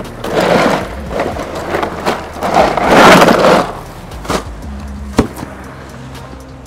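Ice and bottles rattling in a cooler as a hand digs through it for a water bottle: two long bouts of rattling, the second louder, then two sharp knocks near the end.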